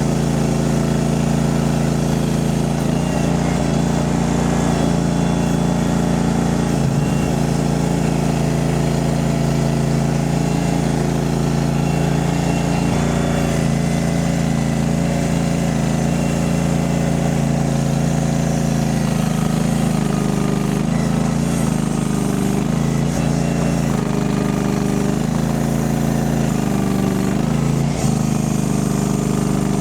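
Mini skid steer engine running continuously. From about two-thirds of the way through, its pitch dips and recovers again and again as the machine works and takes load.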